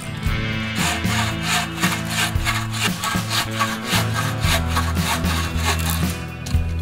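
Bow saw cutting through a wooden pole with quick, even back-and-forth strokes, about three a second, with background music underneath.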